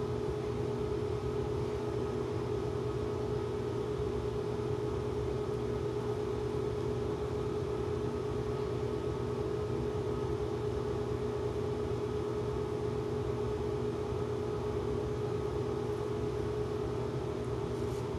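Steady electrical hum with a buzzing pitch that does not change.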